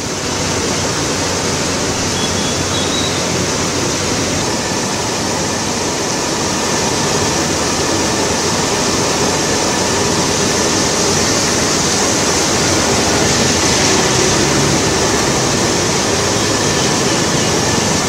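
Floodwater rushing and pouring over a wall: a loud, steady rush of water.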